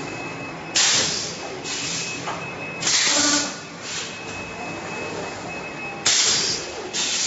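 Bag-in-box bag making machine running, with loud hisses of compressed air venting from its pneumatic cylinders at irregular intervals of roughly a second or two, over a steady mechanical background with a faint high whine.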